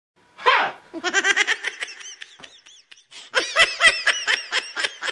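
Comedy sound effect of high-pitched, sped-up cartoonish laughter in rapid runs of chirpy bursts, after a short falling swoosh about half a second in.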